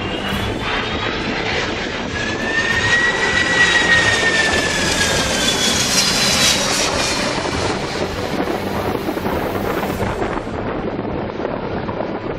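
Airbus A330-300 jet airliner on landing approach passing low overhead. Its engines' whine rises and then falls in pitch over a steady rushing noise, loudest about four seconds in and easing off near the end.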